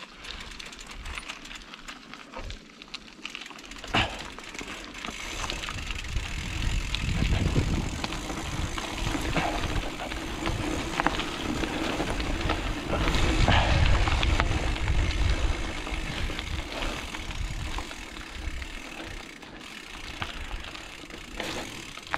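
Mountain bike rolling along a dirt trail: tyre and rattle noise with wind rumbling on the microphone, building about a quarter of the way in and loudest around the middle.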